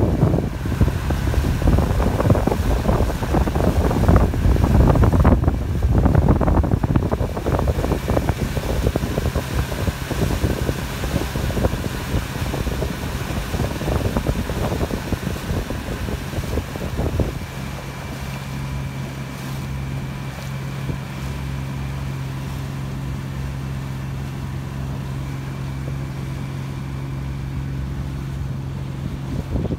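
Wind gusting hard across the microphone over a choppy bay. A little over halfway through the gusts ease and a steady low hum, a motorboat's engine running, carries on to the end.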